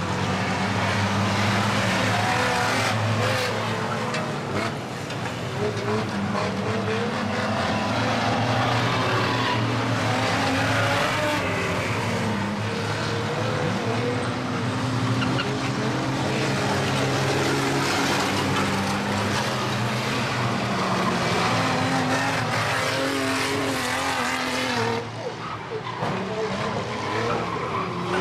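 Engines of several vans in a banger race running and revving together, their pitch rising and falling as they race round the track. The sound dips briefly about 25 seconds in.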